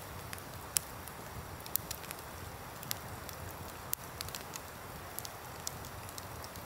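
Wood campfire crackling, with sharp irregular pops and snaps over the steady rush of a river.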